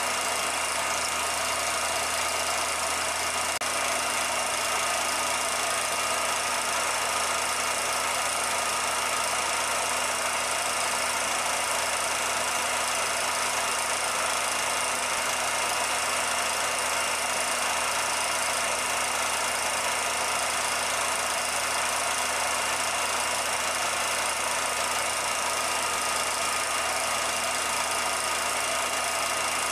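16mm film projector running: a steady mechanical whir with constant hum tones and an even hiss that never changes.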